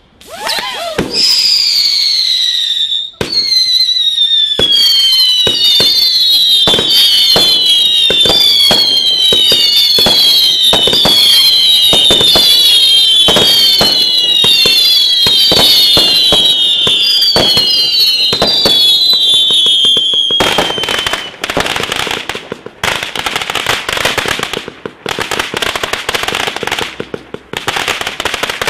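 Consumer firework barrage firing shot after shot with whistling tails. Many overlapping whistles fall in pitch, punctuated by bangs, for about twenty seconds. After that the whistles stop and give way to a dense, rapid crackle of small bangs.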